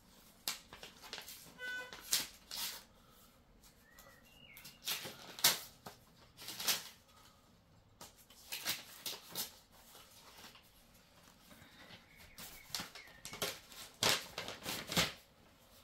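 Paper of a greeting card and its envelope rustling and crinkling as it is handled and opened, in several separate bursts.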